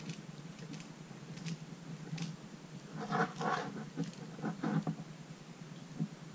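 Small clicks and scraping of a metal mini F-type plug being twisted by hand onto the end of a thin coaxial satellite cable, busiest a few seconds in, over a steady low hum.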